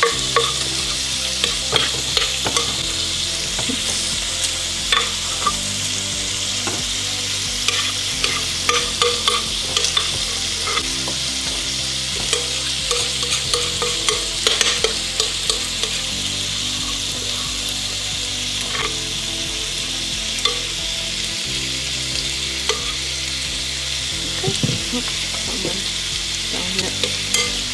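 A metal spoon scraping thick spaetzle batter out of a glass bowl into a plastic spaetzle press, making scattered clicks and taps, over a steady sizzling hiss from the stovetop.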